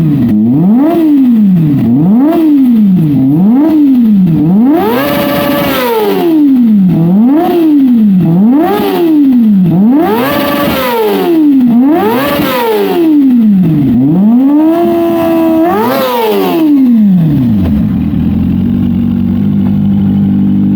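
Kawasaki Ninja ZX-25R's 250 cc inline-four revved in quick blips through an aftermarket Akrapovic R8 muffler. About a dozen revs rise and fall roughly once a second, climbing higher in the middle with a brief hold near the top. Near the end it drops back to a steady idle.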